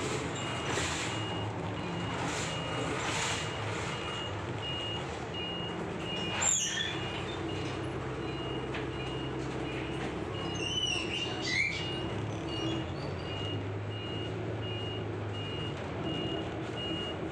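City bus running, heard from inside the cabin: a steady engine drone with a rapid, evenly spaced high beeping throughout. Two brief sharp squeals come about six and eleven seconds in.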